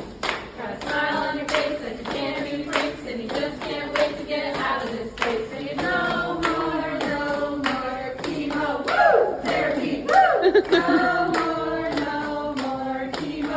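A group of people singing a song together and clapping along on a steady beat, a little under two claps a second. The clapping is there from the start and the singing comes in about a second in.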